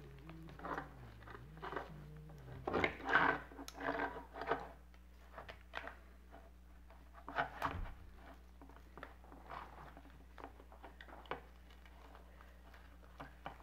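Faint crinkling and rustling as glued fur and fabric are pulled and cut away from a plush reindeer toy, with small clicks of pliers, in scattered bursts; the loudest crackling comes about three seconds in.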